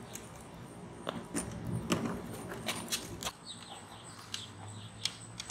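Outdoor ambience of scattered light clicks and knocks, with a few faint bird chirps in the second half.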